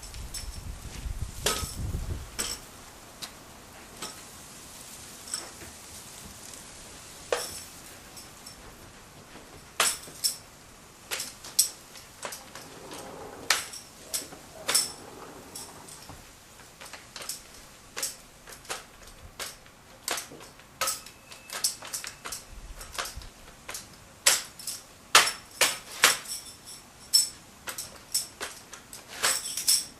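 Drill rifle being handled in an exhibition drill routine: a string of sharp slaps and catches, each with a metallic clink, coming irregularly and thicker near the end.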